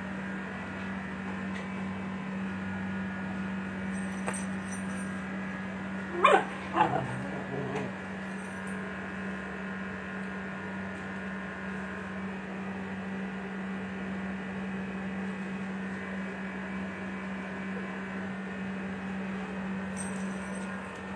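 A dog gives two short barks close together about six seconds in, then a fainter third, over a steady low hum.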